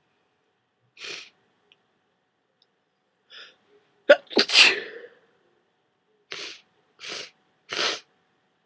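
A person with a head cold sneezing: a breath in, then one loud sneeze with a sharp start about four seconds in, followed by three short breaths.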